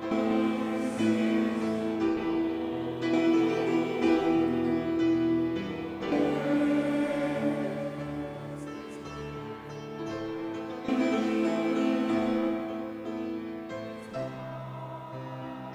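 Choir singing a Christmas carol with piano accompaniment, the sung notes held and changing every second or two.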